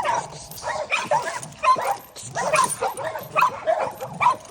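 Pit bulls in a kennel yard barking, short barks repeating about two or three times a second.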